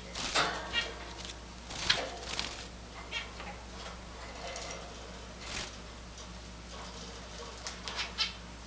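Java sparrows calling in short, scattered chirps, the loudest about two seconds in, mixed with a few light clicks.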